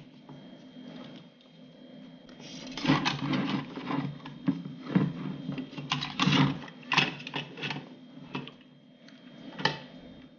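Soaped rubber power cord being worked through the plastic handle of a clothes iron: irregular rubbing, scraping and plastic clicks and knocks, in uneven clusters, with a sharper click near the end.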